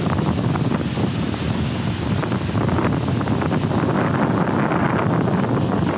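Heavy ocean surf breaking and washing up the beach, with wind buffeting the microphone.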